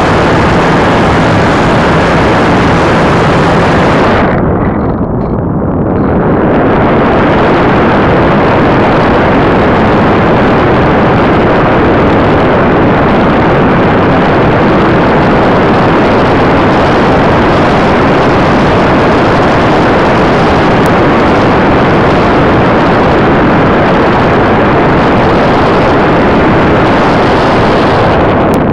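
Loud, steady wind rush over the onboard camera microphone of an RC glider in flight. A faint motor hum sits under it for the first four seconds and then stops. The rush dips and goes muffled for a moment around five seconds in.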